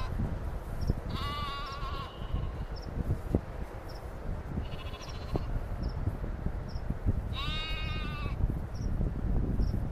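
Sheep bleating: three drawn-out bleats of about a second each, one near the start, a fainter higher one midway and one about two-thirds through, over a low wind rumble. Faint high ticks repeat about once a second.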